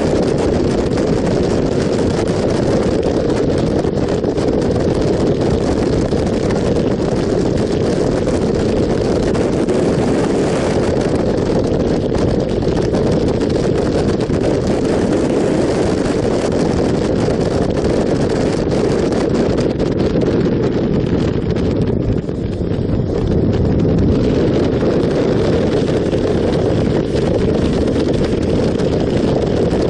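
Steady wind rush over the microphone of a camera on a motorcycle riding at road speed, with the bike's engine and tyre noise mixed in beneath. The sound eases briefly about two-thirds of the way through, then picks up again.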